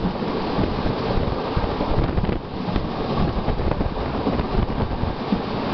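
Wind buffeting the microphone at an open train doorway, over the steady running noise of two Indian Railways passenger trains moving side by side at speed.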